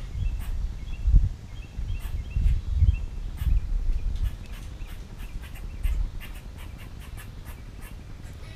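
Wind buffeting the microphone in irregular low gusts that die down after about six seconds. Over it come many small sharp clicks of a squirrel gnawing and cracking seeds at a tube bird feeder, thickest in the second half.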